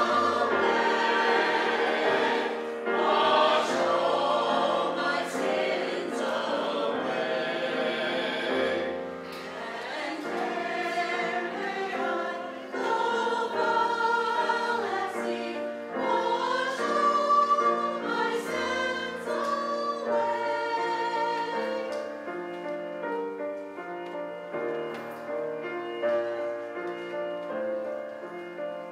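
Mixed church choir of men and women singing an anthem in parts, sustained sung notes moving from chord to chord, easing softer in the last few seconds.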